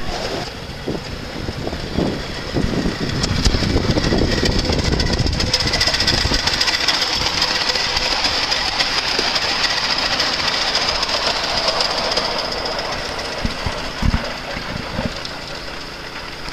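Miniature live-steam locomotive running past with a steady steam hiss over the clatter of the small train on its track. The sound falls away after about twelve seconds as the train pulls off down the line.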